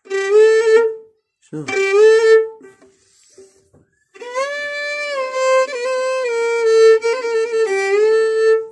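Violin bowed in an Arabic-style taqsim: two short phrases, then a long held note with small ornamental wiggles in pitch, around B-flat where the player is adding a trill.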